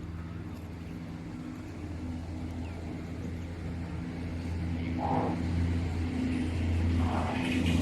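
Motor vehicle engine running steadily as a low hum that grows gradually louder, with two short mid-pitched sounds about five and seven seconds in.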